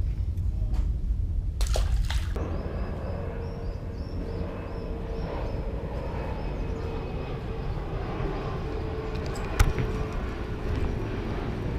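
Steady low rumble with a short splash about two seconds in, as a small crappie is dropped back into the water; after the splash a faint steady hum comes in, and a single sharp click sounds near the end.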